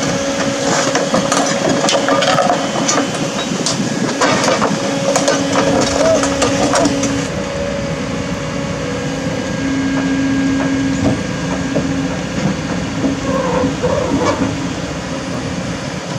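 Excavator engine working under load with a steady whine as its arm levers a tipped-over dump truck back onto its wheels. Metal creaks, squeals and clanks sound over it, mostly in the first seven seconds.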